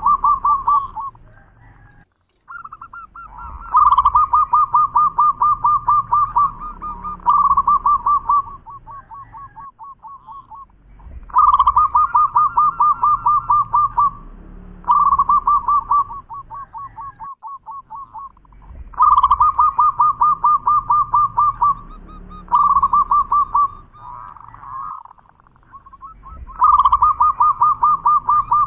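Zebra dove (perkutut) singing: four phrases of rapid pulsed cooing, repeated about every seven to eight seconds. Each phrase starts loud and trails off into softer, quicker notes.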